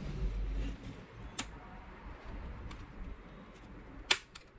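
Plastic case clips of a Samsung NP-S3520 notebook snapping free as the case is pried apart at the seam: a sharp click about a second and a half in and a louder one near the end, with low handling noise in the first second.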